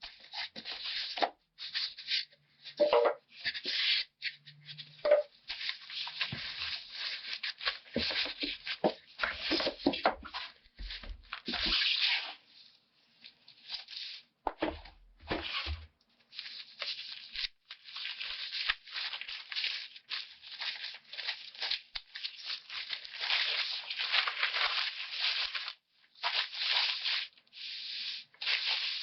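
Packaging being handled: irregular crinkling and rustling in quick bursts, nearly continuous, with a few dull bumps around the middle.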